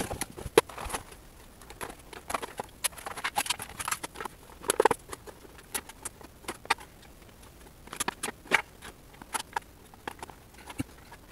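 Clear plastic blister tray of an action-figure package being pulled out of its cardboard box and handled, with irregular crinkles and clicks of the plastic.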